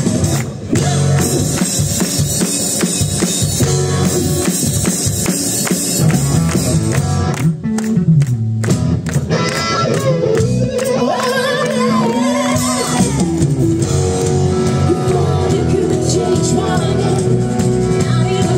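Live rock band playing loudly: a drum beat with electric guitars and keyboard, and a woman singing over it from about halfway through.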